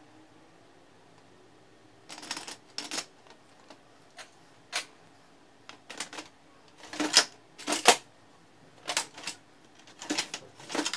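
Hard plastic clicks and knocks of toner cartridges being handled in an HP LaserJet Pro M278-M283 printer's cartridge drawer, and of the drawer being pushed back in. They begin about two seconds in, come singly and in short clusters, and the two loudest knocks fall about a second apart just past the middle.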